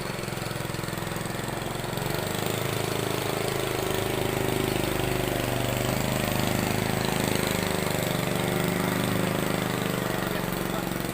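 Engine of a ketek, a small motorised river boat, running steadily as the boat passes close by, growing louder about two seconds in and easing near the end.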